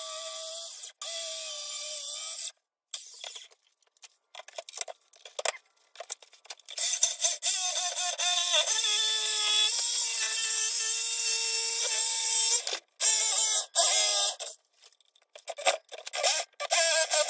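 Handheld circular saw cutting hatch openings in 3/4-inch pressure-treated plywood, run in several short bursts with stops between. During the longest cut in the middle, the motor's whine drops in pitch as the blade bites into the wood.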